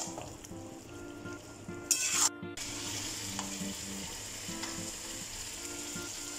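A metal spatula stirring chicken curry in a kadai, with a loud scrape or clatter about two seconds in; then a steady high sizzle from a steel pan heating on the stove, bubbles rising across its base.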